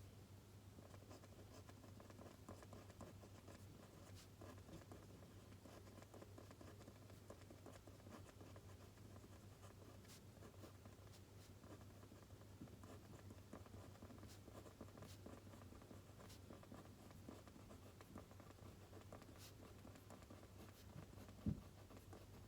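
Pen writing on paper: faint, continuous scratching with small ticks of the pen, and one soft thump near the end.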